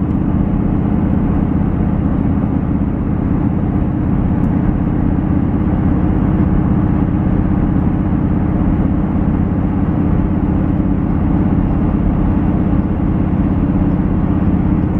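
Pickup truck driving: a steady engine and road drone heard from inside the cab.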